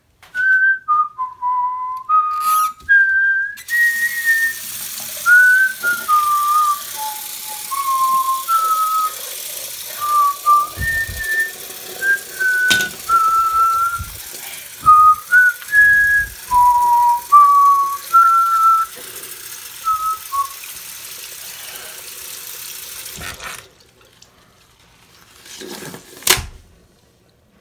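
Someone whistling a slow, wandering tune, one clear note at a time, over a steady hiss. The whistling stops about two-thirds of the way through, the hiss cuts off soon after, and a single knock sounds in the quiet near the end.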